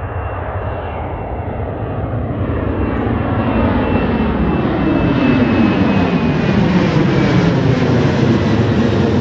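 Boeing 737 airliner's twin jet engines at takeoff climb power as it climbs out and passes overhead: a deep roar that grows steadily louder, with a faint high whine slowly falling in pitch above it.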